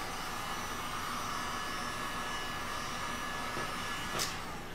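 Handheld electric heat gun blowing steadily with a fan rush and a faint electrical hum. A short knock comes near the end, just before it stops.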